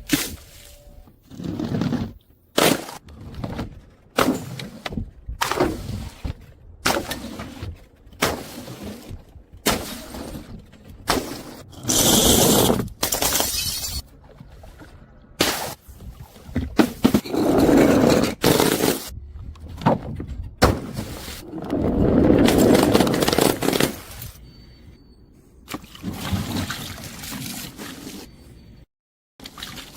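A quick succession of short, separate breaking and crushing sounds, with glass bottles shattering among them. Sharp cracks alternate with longer grinding, crunching stretches of a second or two, each clip cut off suddenly.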